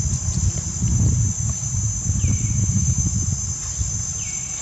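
Steady high-pitched drone of insects over an uneven low rumble, with two short falling chirps about two and four seconds in.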